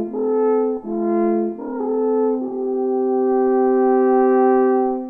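A wooden alphorn playing a short phrase of changing notes, then holding one long note that fades out near the end.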